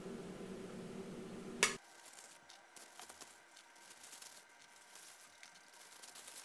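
Thin clear plastic bag crinkling faintly as handmade dumplings are packed into it, starting about two seconds in. Before that a steady low hum, cut off by one sharp click.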